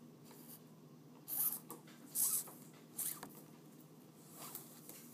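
Nylon 550 paracord being pulled through the loops of a bracelet weave: four short scratchy swishes, the loudest two about a second and a half and two seconds in, over a faint steady hum.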